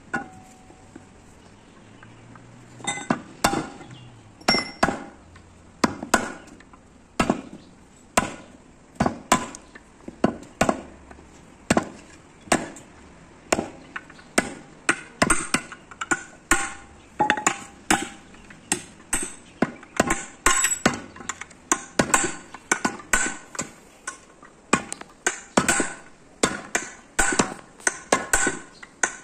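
Hammer driving a chisel against a steel bus brake shoe to cut away the worn lining: repeated sharp metallic blows, about one to two a second, starting about three seconds in.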